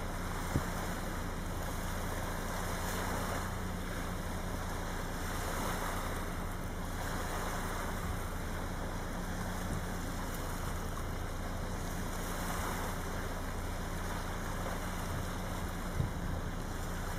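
Small waves washing onto a sandy beach, a steady wash that swells gently every few seconds. There are a couple of short low bumps, one about half a second in and one near the end.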